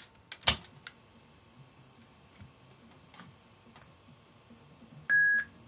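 Mechanical clicks of the Onkyo TA-2060 cassette deck's front-panel keys being pressed, one sharp click about half a second in, then a few faint ticks. Near the end there is a brief high steady beep.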